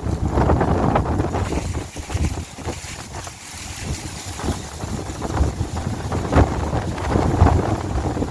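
Strong wind buffeting the microphone, a low rumbling noise that swells and drops in gusts.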